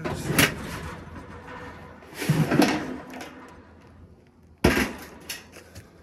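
Knocks and clanks of a sheet-metal HVAC blower housing being handled and set down, with a short scrape in the middle and one sharp knock a little over two-thirds of the way through.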